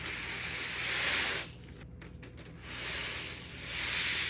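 Loose peppercorns sliding and pouring off parchment paper: two long hissing pours, each about a second and a half.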